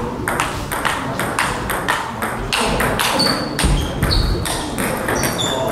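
Table tennis rally: the plastic ball clicks in quick succession off the rackets and the table. Short high squeaks, a few seconds in, come from sports shoes on the hall floor as a player lunges.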